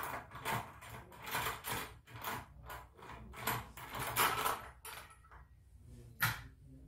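Brush cutter's blade nut being spun off its threaded shaft by hand: a run of short metallic scraping strokes, two or three a second, that stops about five seconds in, then a single sharp click.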